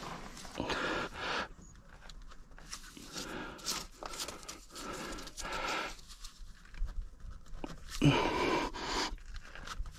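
A person breathing hard in uneven breaths while straining at awkward work, with scattered light clicks and knocks of hand tools. The loudest breath comes about eight seconds in.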